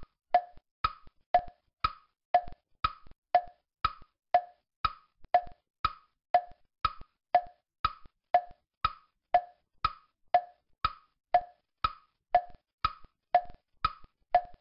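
Tick-tock sound effect: evenly spaced wood-block knocks, about two a second, alternating high and low in pitch.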